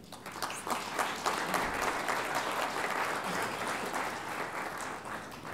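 Audience applauding, building quickly and dying away near the end.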